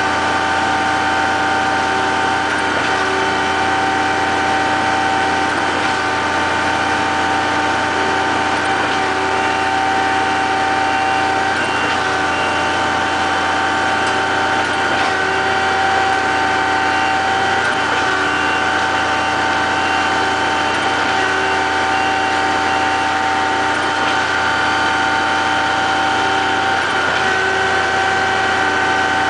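Concrete pump truck's diesel engine running at a steady speed, with one tone in its hum cutting in and out every two to three seconds.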